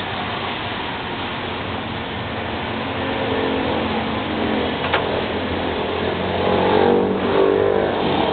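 Motor vehicle engines running, with one swelling louder near the end as if passing close. A single sharp click about five seconds in.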